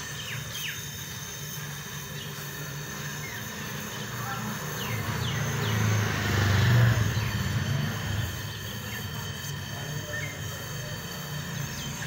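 Gas brazing torch flame hissing while it heats the copper capillary-to-filter-drier joint of a refrigerator, growing louder around the middle, over a steady low hum.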